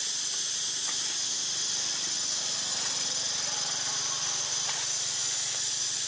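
Steady, high-pitched buzzing hiss of an insect chorus, with a faint rustle of dry leaves now and then.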